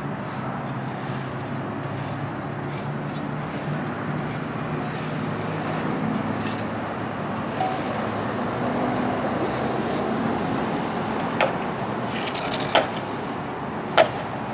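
Steady traffic noise with a low engine hum, then three sharp knocks about a second and a half apart near the end.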